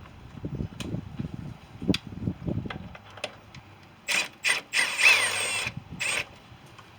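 Tool clicks and rattles on metal, then a cordless drill fitted with a socket whirs in four short bursts from about four seconds in, spinning a 5/16 bolt out.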